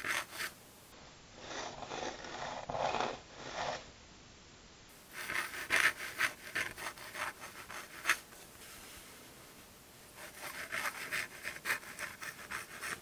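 Steel dip pen nib, a Hunt 22, scratching across paper while writing cursive: three runs of quick scratchy strokes with short pauses between them as the pen lifts.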